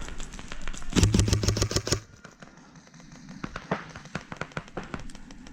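Airsoft gun firing a rapid burst of shots lasting about a second, then scattered fainter shots and BB hits.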